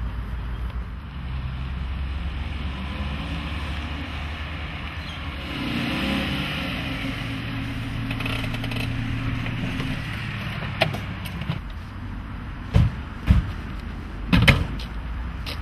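Small sedan's engine running as the car drives up and slows to a stop, then idling. A few sharp thumps come near the end.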